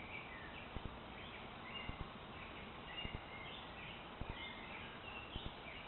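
Woodland birds chirping in short phrases over a steady background hiss, with a faint double click repeating about once a second.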